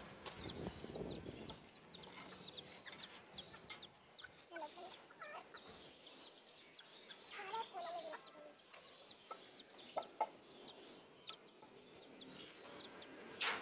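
Chickens clucking now and then, faint, over a steady run of short, high, falling chirps.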